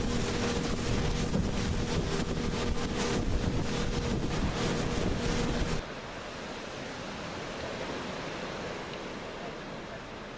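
A motorboat engine running with wind buffeting the microphone. About six seconds in it cuts off abruptly to a quieter, steady rushing noise.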